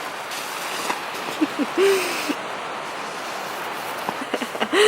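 An inflatable air lounger (lay bag) is swept through the air to fill it, with a rush of air and fabric about two seconds in. A few short hooting calls rise and fall in pitch, twice.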